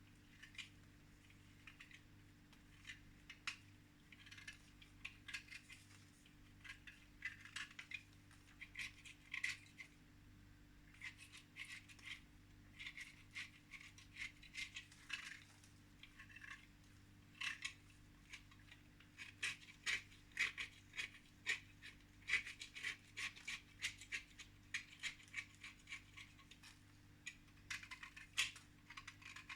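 Faint, irregular light clicks and taps of small hard objects handled close by, several a second in clusters, over a steady low hum.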